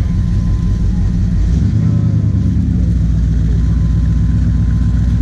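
A large vehicle engine idling loudly, its note settling deeper and steadier about one and a half seconds in.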